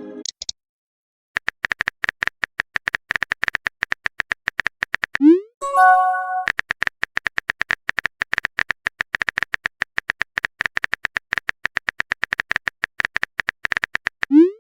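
Rapid, uneven clicking of a phone keyboard typing sound effect, with a short rising swoop and a brief chime about five seconds in, the message-sent sound. Another swoop comes at the very end.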